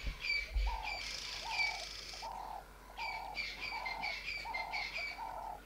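Wildlife ambience: birds chirping high over a lower call that repeats about twice a second, with a short lull a little past the middle.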